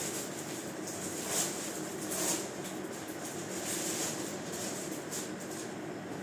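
Saree cloth rustling as it is handled and unfolded, with a few brief louder rustles, over the steady hum of a ceiling fan.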